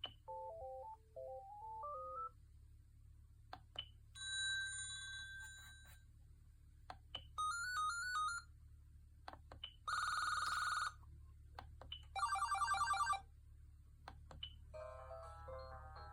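Siemens Gigaset C450 cordless phone playing a run of short ringtone samples one after another: a beeping melody, steady chimes, a trill, a buzzy ring and a warbling ring, then another melody. Each lasts about a second or two, with clicks in the gaps between them.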